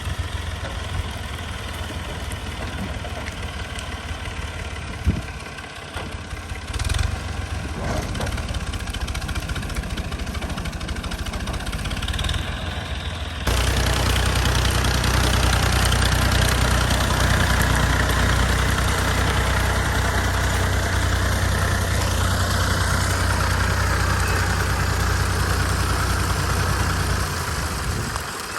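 Fiat 480 tractor's diesel engine running steadily. About halfway through the sound abruptly becomes louder and fuller and stays so until near the end, with a single sharp click before that.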